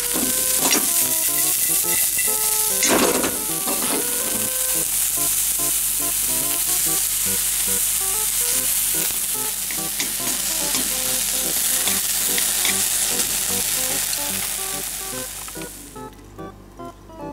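Bean sprouts sizzling as they are stir-fried in a steel wok over high heat, with a couple of louder stirring strokes in the first few seconds. The sizzle fades out near the end.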